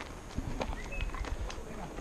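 Footsteps of several people in sandals and flip-flops crunching along a gravel dirt road at a walking pace, with a couple of short high chirps about a second in.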